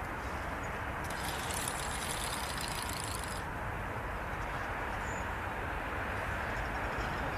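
Steady low outdoor rumble with no clear pitch. From about one to three seconds in, a brief high-pitched rattling whirr sounds over it.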